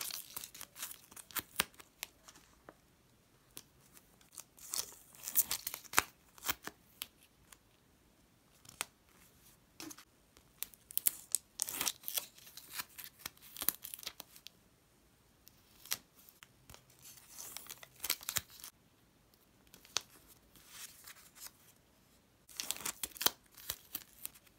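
Glossy, tape-covered homemade paper stickers being peeled off their backing and pressed onto a notebook page: short bursts of crisp peeling and crinkling with small taps, in several clusters with quiet gaps between.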